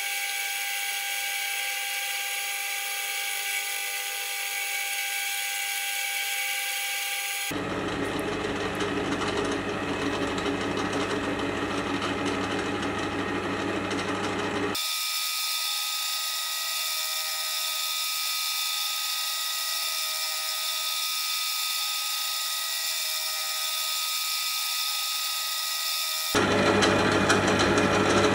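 Metal lathe running as it free-hobs the teeth of an acetal worm gear, the hob in the chuck driving the plastic blank round: a steady machine whine. The sound changes abruptly about 7 and 15 seconds in and gets louder near the end.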